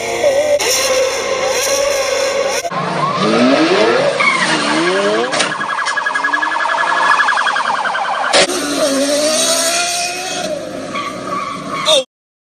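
Supercar engines revving hard across several short clips. In the middle the pitch climbs sharply several times, and a long rapidly pulsing high squeal follows, like tyres skidding. After another cut a high-revving engine rises and falls in pitch, and the sound cuts out abruptly near the end.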